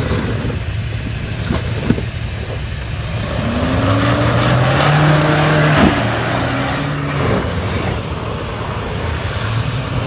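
Toyota Hilux pickup's engine revving under load over a steady low rumble. Its pitch climbs about three and a half seconds in, and it is loudest as the truck passes close, around five to six seconds in, then fades.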